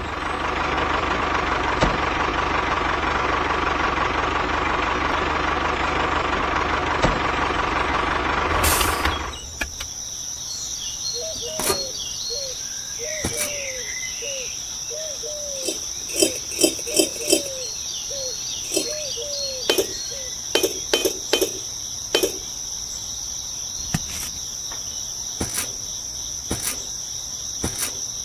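A loud, dense steady noise for about the first nine seconds that cuts off abruptly, followed by a steady high insect trill with short clucking calls and scattered sharp clicks.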